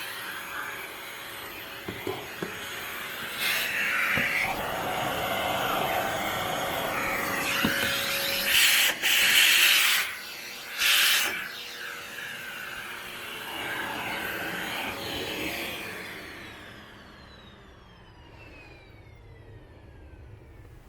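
Panasonic paper-bag canister vacuum cleaner running with its narrow nozzle scraping and sucking along carpet edges and room corners, with two loud surges of rushing suction about 9 and 11 seconds in. About 16 seconds in the motor is switched off and its whine falls away as it spins down.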